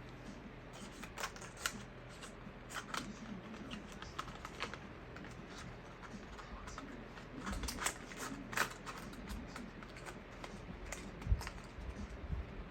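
Handling noise: irregular light clicks and taps of small objects being fiddled with, with a few louder knocks around the middle and near the end.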